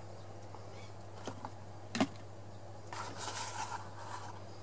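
A folding knife and its box being handled on a table: a couple of light clicks, a sharper click about two seconds in, then a second or so of rustling and scraping as the box is moved and the knife laid on it.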